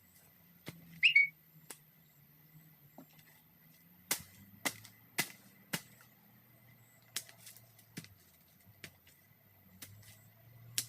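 A short, high, rising whistle-like chirp about a second in, followed by a scattering of sharp clicks and knocks.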